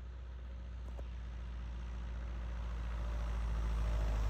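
A light airplane's piston engine and propeller drone steadily and grow gradually louder.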